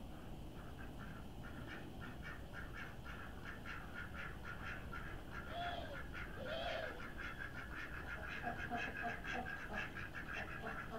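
Ducklings peeping in a rapid, continuous stream. Two louder, lower quacks come a little past halfway, with a few more short low calls near the end.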